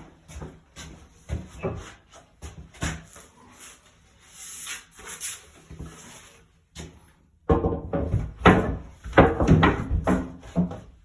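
Wood being knocked and scraped in short irregular bursts, which grow louder and busier about three-quarters of the way through.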